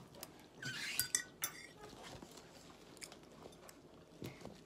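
A metal fork clinking and scraping against a plate a few times about a second in, with quiet chewing of a mouthful of food.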